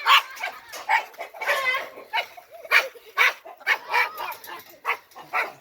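Flock of agitated chickens squawking and clucking in a rapid, irregular run of short calls as they rush around the pen.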